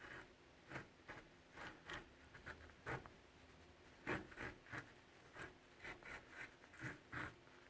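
A blade cutting through the thick cardboard casing of a firework in short, irregular scraping strokes, about two or three a second, stopping and starting.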